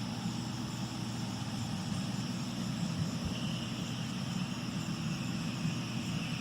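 John Deere 4440's six-cylinder diesel running steadily under load, driving a New Holland Roll-Belt 450 round baler. About halfway through, a high, steady squeal comes in from the baler's belts, a sign that the bale chamber is filling.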